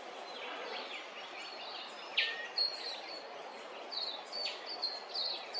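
Wild birds calling over a steady outdoor hiss. A sharp chirp drops in pitch about two seconds in, followed by a run of short, high notes.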